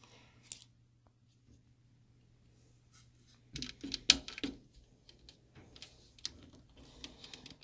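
Small metal screws from a laptop's hard drive mount being handled and set down, making light clicks and taps: a cluster about three and a half seconds in with the sharpest tap just after four seconds, then scattered lighter clicks.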